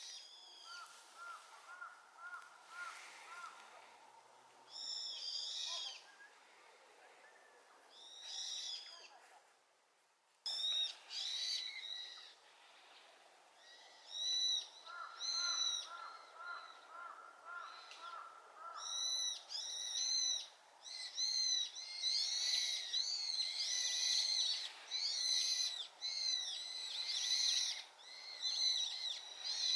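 Brown-eared bulbuls giving loud, shrill calls, sparse at first and then, from about twenty seconds in, many overlapping calls as the flock's chorus and the bird's answers run together. A softer, rapid run of lower notes comes twice.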